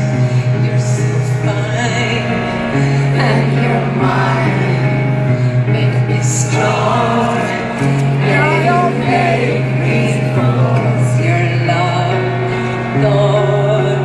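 Live pop concert music: a voice singing over sustained bass notes that pulse in places.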